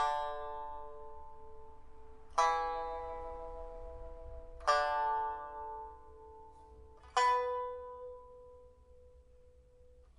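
Pipa with a big-fruit rosewood body, a new soundboard and new frets, steel first string and copper strings: four plucked notes or chords about two and a half seconds apart, each left to ring and fade slowly.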